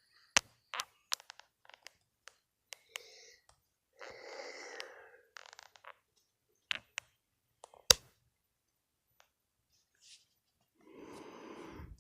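A person breathing heavily close to the microphone: a long breath about four seconds in and another starting near the end. Scattered sharp clicks and knocks come between the breaths, the loudest about eight seconds in.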